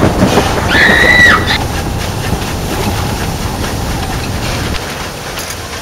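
Steam train running with a steady rumble. Right at the start there is a loud sudden burst, and about a second in a short, high, steady tone sounds that dips in pitch as it ends.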